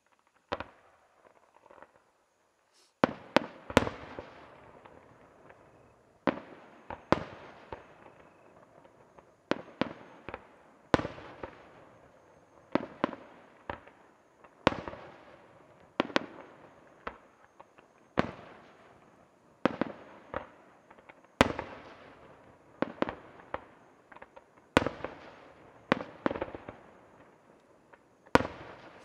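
Aerial firework shells bursting in a series of sharp bangs, one every second or two, each trailing off in an echo. The first few seconds are nearly quiet, with one faint bang.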